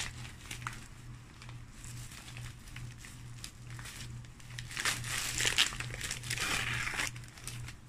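Newspaper packing being crumpled and pulled apart by hand, rustling on and off, busiest and loudest between about five and seven seconds in.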